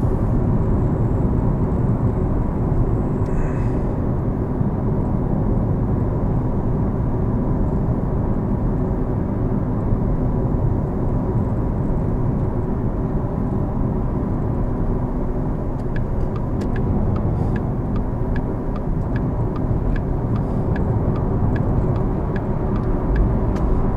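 Porsche Taycan Turbo S, an electric car, driving on a wet road: a steady low rumble of tyres and road noise, with no engine sound. In the last third a series of light ticks sets in, about two a second.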